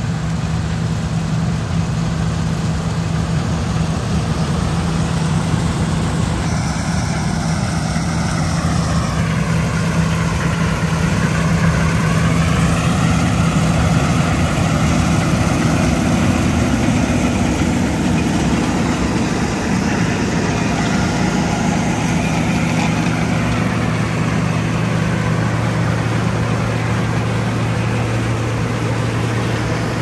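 John Deere 9660 STS combine running steadily under load as it cuts soybeans close by: a loud diesel engine drone with machinery whine. The drone's pitch settles lower past the halfway point as the machine comes alongside.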